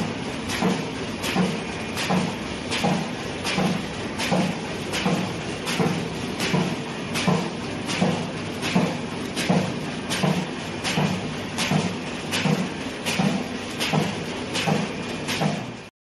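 CHZ-500 plastic-bag-making machine running in production: a steady mechanical clatter with a sharp clack and a low thump about every three-quarters of a second, one per machine cycle. The sound cuts off abruptly near the end.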